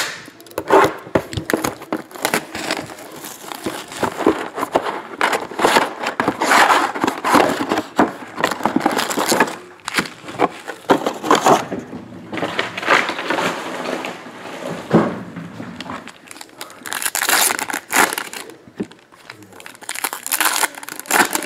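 Plastic and foil trading-card pack wrappers crinkling and rustling in irregular bursts as packs are taken out of a hobby box, stacked and handled.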